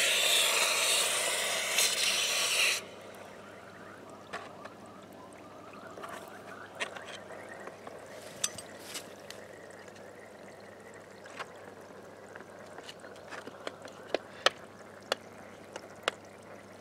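Hot steel casting flask packed with investment plaster plunged into a bucket of water: a loud steam hiss that cuts off after about three seconds. Then faint bubbling with scattered small pops as the investment soaks and gives off gas.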